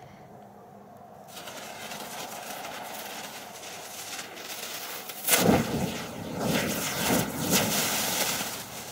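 A firework burning: a hiss that builds, then a sudden loud burst about five seconds in with sharp pops, and a few seconds of sputtering flare before it dies away.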